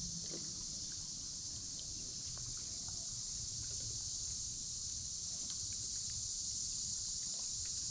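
Summer-evening insect chorus, mostly crickets, keeping up a steady high-pitched trill with no break, with a few faint ticks over it.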